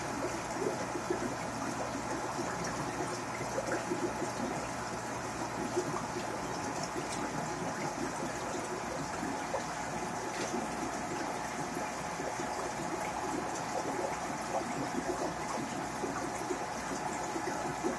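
Aquarium water trickling and bubbling steadily, with many small crackles.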